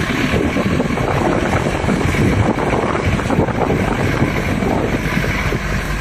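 Jeep driving over a rough, bumpy dirt forest track: the engine runs steadily while the vehicle jolts and rattles over the ruts, with wind noise on the microphone.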